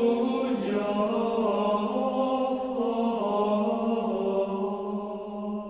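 Slow sung chant with long held notes that shift gently in pitch, dipping a little in level near the end.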